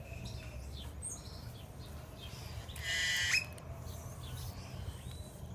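Howler monkeys chewing biscuits with faint lip-smacking over a steady low rumble. A brief, loud, high chirp comes about three seconds in.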